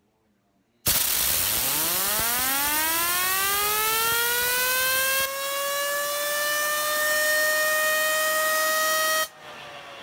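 Compressed air from an air-compressor blow gun spinning up a copper Damned Designs Turbulence XL fidget spinner. About a second in, a loud hiss of air starts, with a whine that rises quickly in pitch and then levels off as the spinner reaches top speed. Near the end the air cuts off suddenly, leaving the spinner's fainter whine slowly dropping in pitch as it coasts.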